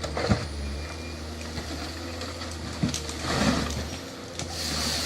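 Forestry harvester's diesel engine running steadily, with a few sharp knocks and a brief rushing swell about three seconds in as it works the timber.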